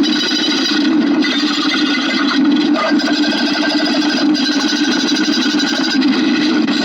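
Dense, rapid clicking that runs on without a break, steady in level.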